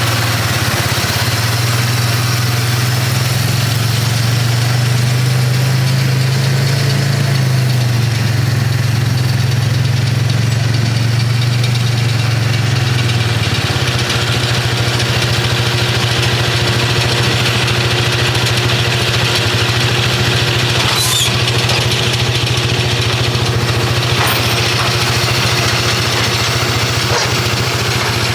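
John Deere 6150 tractor's diesel engine running steadily, heard from inside the cab. The engine note wavers slightly in pitch for the first half, then settles into an even drone.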